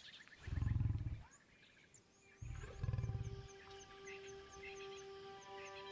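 A lion at a kill growling twice, two low pulsing growls about a second long each, the second a little after two seconds in. Soft music with long held notes comes in over the second half.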